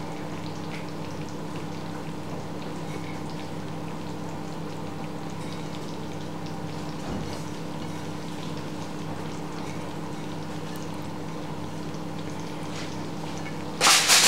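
A hot dish of cream-baked potatoes bubbling and sizzling softly over a steady oven-fan hum. A short clatter comes near the end.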